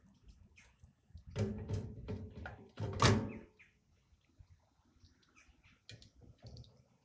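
Knocks and scraping as a small 12 V battery is set down into its holder on a petrol generator's tubular steel frame, the loudest thump about three seconds in, followed by a few faint clicks.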